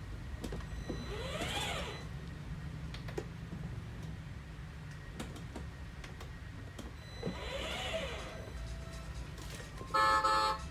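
Battery-powered kids' ride-on car's electric drive motors whining up in pitch and back down twice over a low steady hum. A short, loud, buzzy electronic horn tone sounds near the end.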